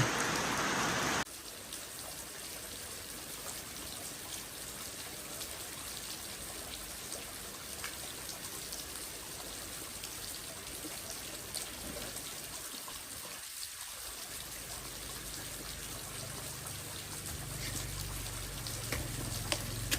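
Heavy rain falling steadily, with scattered drips. It is louder for about the first second, then steadier and softer; a low hum joins near the end.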